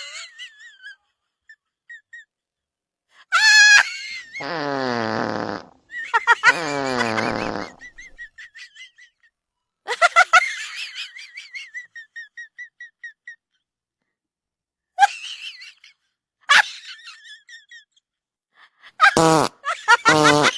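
Fake fart sound effects: two buzzy fart noises of about a second each, a few seconds in, and a louder one near the end. Trains of short, high whistling chirps fall between them.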